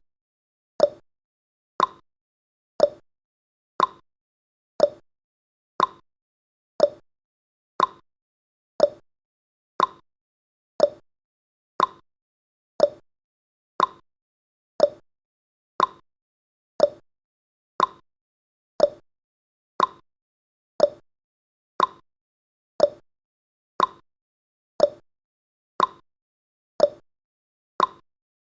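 Countdown timer's tick sound effect: a short tick once every second, each dying away quickly.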